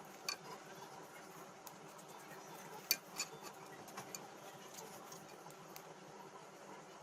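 A few light metallic clicks and clinks, as of small metal parts or tools being handled, over faint room tone; the loudest comes about three seconds in.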